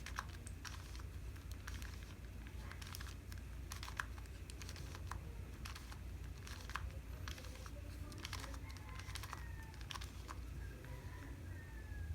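Plastic 2x2 Rubik's Cube being turned through an algorithm: quick, irregular clicks and rattles of the layers snapping round, over a low steady hum.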